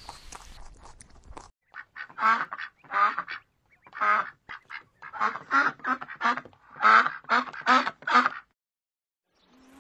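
Mallard duck quacking: about a dozen short quacks in quick clusters, starting about two seconds in and stopping shortly before the end.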